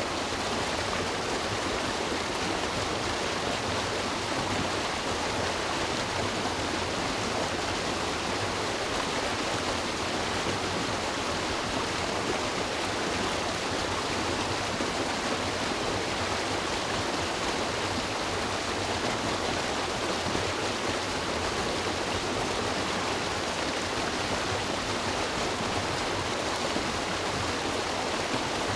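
River water rushing over its bed in a steady, unbroken flow.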